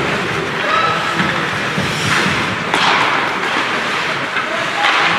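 Ice hockey play in an echoing rink: skate blades scraping and carving the ice, with sticks and puck knocking, and a few louder scrapes about two, three and five seconds in.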